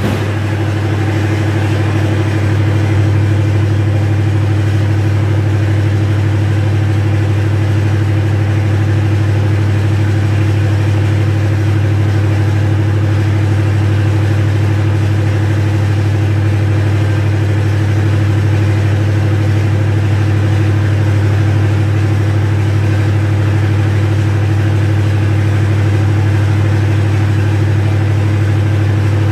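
MTU diesel generator set running at a steady speed during a load test, a constant low drone that does not change.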